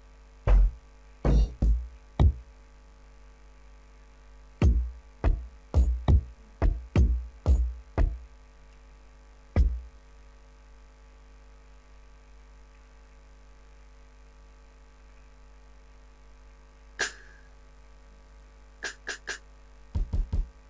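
Hip-hop kick drum samples auditioned one after another in a DAW's sample browser: short, deep kick hits at irregular intervals for the first ten seconds. After a pause come a few brighter snare hits and two more deep hits near the end.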